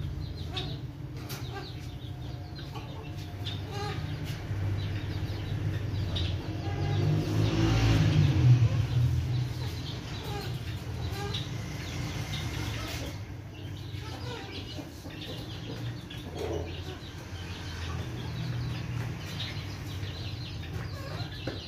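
Domestic hens clucking at intervals over a steady low hum, with a louder rustling swell about seven to nine seconds in.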